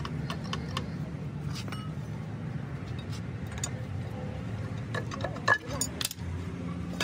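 Metal tools and tractor parts clinking and tapping as they are handled, with a louder metallic knock about five and a half seconds in, over a steady low hum.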